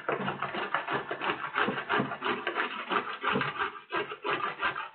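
Carrot being grated on the coarse side of a four-sided stainless-steel box grater: a quick run of rasping strokes, one after another.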